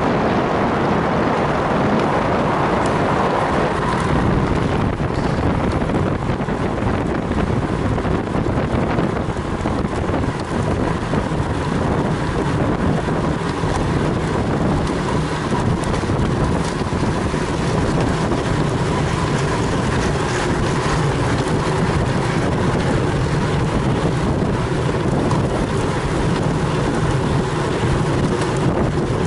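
Steady rush of wind on the microphone of a camera riding on a road bicycle at race speed.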